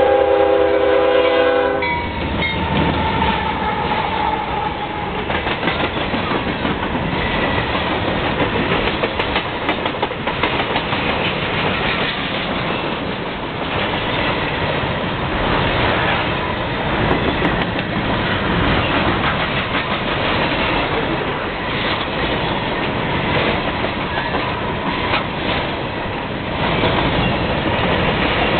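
Freight train horn sounding, cutting off about two seconds in. Then the CSX trash train rolls past close by: the steady rumble and clatter of container-laden flatcar wheels over the rails.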